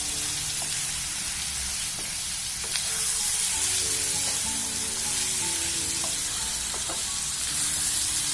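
Chopped onions and tomatoes sizzling steadily in hot coconut oil in a pan as they are stirred, with a few faint clicks of the stirring utensil. Soft background music plays underneath.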